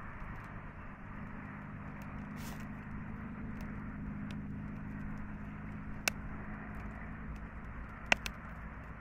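Campfire burning under grilling shashlik: a steady hiss with sharp crackling pops about six seconds in and again near the end, the last the loudest. A faint low hum runs underneath.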